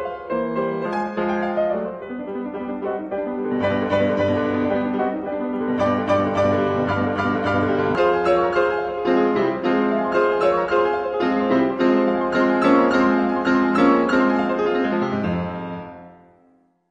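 Piano music playing a steady run of notes, fading out near the end.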